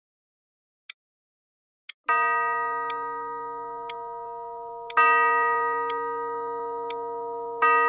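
Clock ticking about once a second. About two seconds in a bell-like chime tone comes in and rings, slowly fading, and it is struck again about five seconds in and near the end while the ticking goes on.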